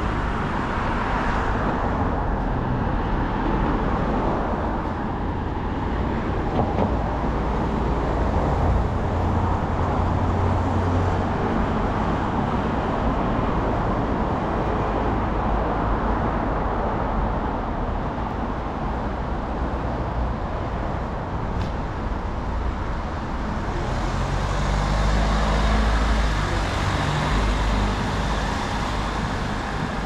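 City street traffic: car engines and tyres on the road as a steady hum, with heavier rumbles of vehicles passing about ten seconds in and again near twenty-five seconds.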